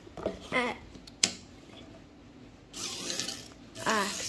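Sharp plastic click as the Smart Cutebot robot car is switched on and handled, then a short whir from its small wheel motors about three seconds in.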